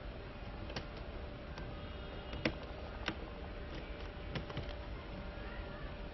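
Sharp plastic clicks and taps, about seven spread over a few seconds with the loudest about two and a half seconds in, as a replacement laptop keyboard is fitted and clipped into place. A steady low hum runs underneath.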